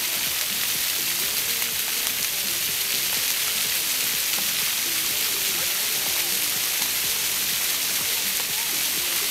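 Steady hiss of a dry-deck fountain's water jets spraying up and splashing down onto wet paving, mixed with falling rain.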